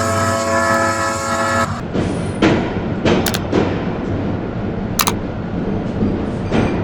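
Train horn held on one steady chord, cutting off just under two seconds in, then the rumble of a train pulling away, with several sharp metallic clanks.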